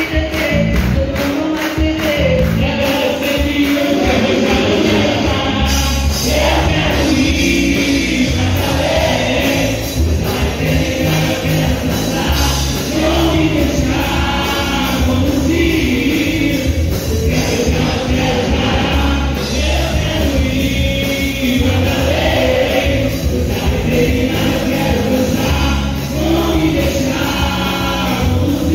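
Upbeat Christian worship song: a group of voices singing together over a steady beat.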